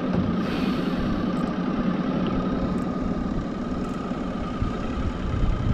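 A boat motor running steadily with an even hum and a steady high tone over it.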